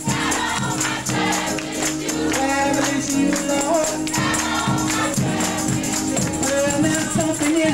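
Upbeat gospel music with several voices singing over a steady beat, a tambourine shaken along with it.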